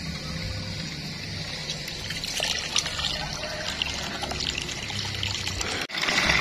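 A stream of water pours into a plastic tub, splashing and bubbling over the fish inside. The pouring grows louder from about two seconds in, breaks off for an instant near the end, and comes back louder still.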